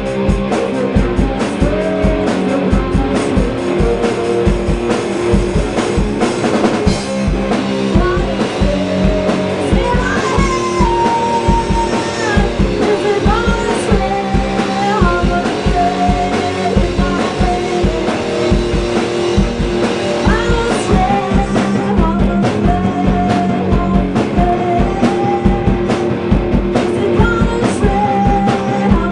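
Rock band playing live: electric guitar through an amplifier stack and a drum kit with a steady kick-drum beat, with a woman singing over them.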